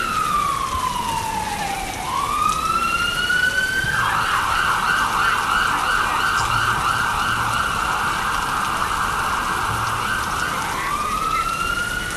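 Emergency vehicle siren: a slow wail that falls and rises, switching about four seconds in to a fast yelping warble, then back to a rising wail near the end, over steady rain on the street.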